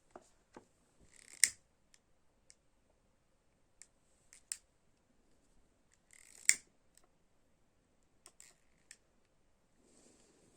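Scattered sharp clicks, two much louder ones about five seconds apart, with a few faint ticks between them against quiet room tone.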